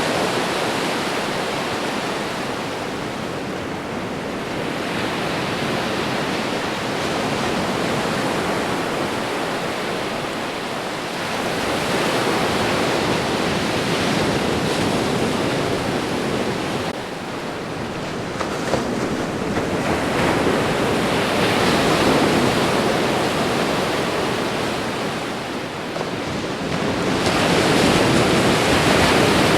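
Ocean waves washing onto a shore: a continuous rush of surf that swells and ebbs, building to a louder wash every several seconds.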